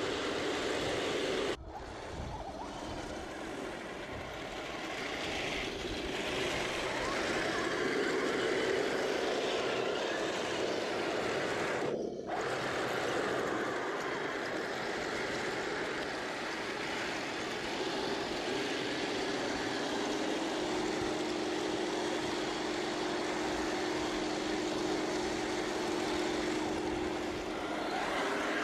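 Heng Long 1/16 scale Challenger 2 RC tank driving over rough ground, its drive motors, gearboxes and plastic tracks running steadily. The sound breaks off sharply twice, about one and a half and twelve seconds in, and a steady droning tone joins at about twenty seconds.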